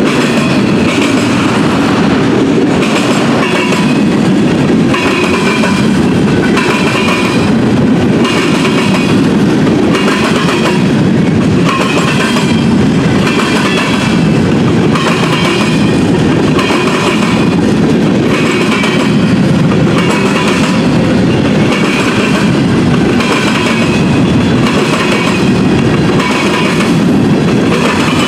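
Freight train cars (autoracks and covered hoppers) rolling past close by: a steady loud rumble with the wheels clacking rhythmically over the track, roughly once a second.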